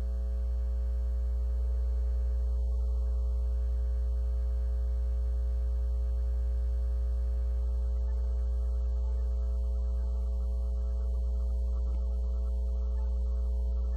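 Steady low electrical mains hum with a buzz of overtones, unchanging throughout.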